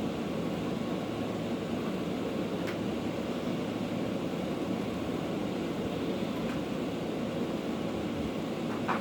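Vacuum cleaner running steadily, with a few faint clicks, one a little louder near the end.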